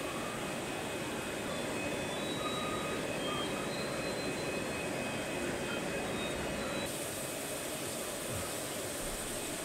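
Steady rushing hum of fish-room aeration and water filtration serving rows of aquarium tanks, with a few faint short high tones over it.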